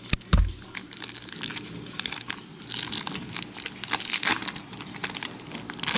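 Foil wrapper of a 2000 Bowman football card pack crinkling and tearing as it is pulled open by hand, in a rapid run of crackles. A single heavy thump comes just after the start and is the loudest sound.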